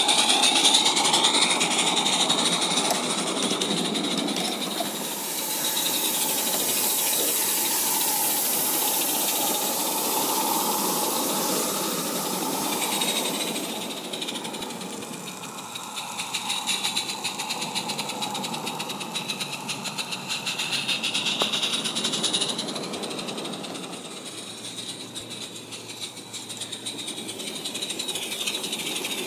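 G-scale garden-railway model steam locomotive running with its carriages: a steady hiss of steam and a quick chuffing, with the wheels rattling over the track. The hiss grows louder for several seconds in the first half.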